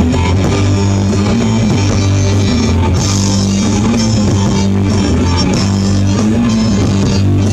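Live rock band with electric guitars, bass guitar and drums playing the instrumental intro of a song, before the vocals come in.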